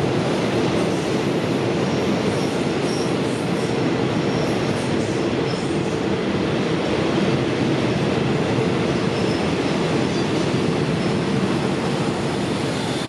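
Railway passenger coaches rolling past on the track: a steady rumble of steel wheels on rail, with faint high-pitched wheel squeals now and then.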